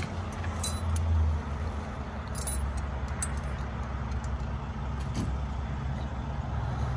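Steel tire chain links clinking a few times as gloved hands pull the chain into place on a semi truck's drive tire. A steady low idling engine hum runs underneath and is the loudest sound.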